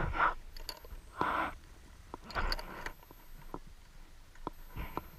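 Underwater handling and movement noise from a freediver on a dive line: several short muffled swishes of moving water, about a second apart, with a few sharp clicks between them.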